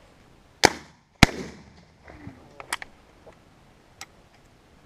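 Two shotgun shots in quick succession, about half a second apart, followed by a few much lighter clicks.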